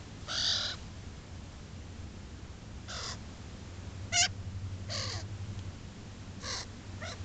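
Young pet bird giving short, harsh calls, about six of them at irregular gaps, a sharper one about four seconds in, over a steady low hum.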